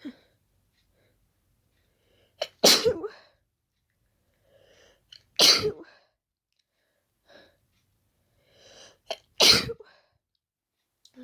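A person sneezing three times, wet sneezes about three and four seconds apart, each preceded by a short catching inhale: allergic sneezing set off by the pollen of daisies.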